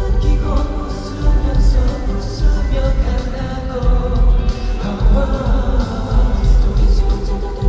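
Pop song played live over an arena sound system: male voices singing over a backing track with a heavy, pulsing bass.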